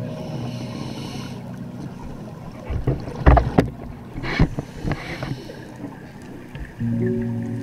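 Scuba regulator exhaust: exhaled bubbles rushing and bubbling past the camera in a cluster of irregular bursts through the middle. Soft ambient music fades out early and comes back near the end.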